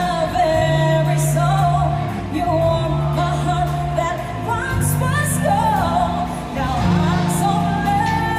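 Pop music with a singer carrying a melody over sustained bass notes and a regular cymbal beat.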